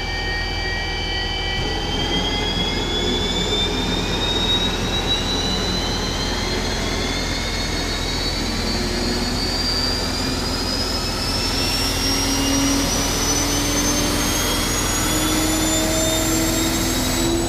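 Abrams tank's AGT1500 gas turbine engine spooling up: a whine of several tones climbing steadily in pitch over about fifteen seconds, over a steady low rumble, then cutting off abruptly.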